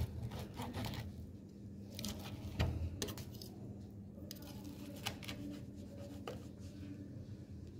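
Chef's knife slicing through a grilled chicken breast and knocking on a plastic cutting board, a scatter of irregular knocks and clicks with the loudest about two and a half seconds in, over a steady low hum.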